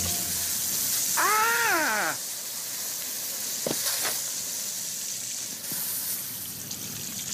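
Steady hiss of water spraying from a garden hose. About a second in comes a short yelp that rises and falls in pitch, and about halfway through there are two short knocks.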